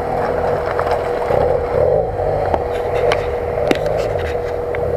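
Motorcycle engines running: one holds a steady idle close by while another off-road motorcycle's engine rises and falls as it climbs the rocky dirt track, with a few sharp clicks in the second half.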